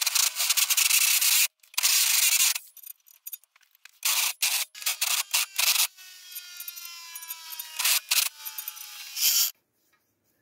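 Electric drill with a home-ground countersink cutter chamfering a bolt hole in a metal adaptor plate, the cutter rasping against the metal in two long cuts at the start. Shorter scraping bursts follow, with a whine that falls slowly in pitch in the second half.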